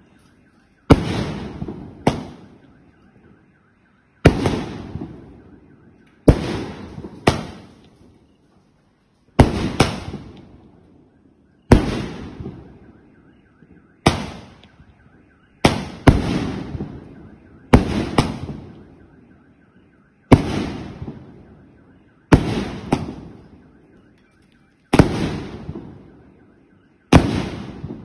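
A 2-inch, 49-shot firework cake firing: about eighteen sharp bangs come one every second or two, some in quick pairs, and each fades away over a second or so. A faint steady tone runs underneath in the gaps between shots.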